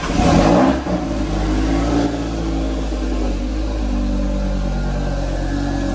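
Audi TT RS's turbocharged five-cylinder engine on a cold start: it catches with a brief loud flare of revs in the first second, then settles into a steady idle, with a small rise in revs about two seconds in.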